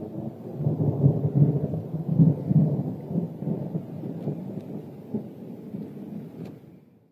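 Thunder rumbling from a thunderstorm, loudest between about one and two and a half seconds in, then fading and cutting off suddenly near the end.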